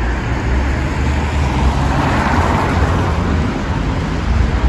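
Road traffic on a wet street: a passing vehicle's tyre hiss swells and fades about two seconds in, over a steady low traffic rumble.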